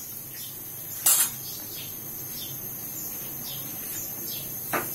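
Gas stove burner being lit: a sharp click and brief rush about a second in, then a smaller knock near the end. Short high chirps repeat faintly in the background.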